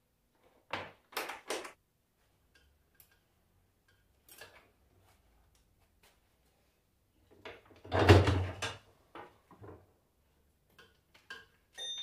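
Knocks and clatter from handling an alternator and its test leads on a bench test stand: three quick knocks about a second in, a louder thud about eight seconds in, then a few lighter knocks.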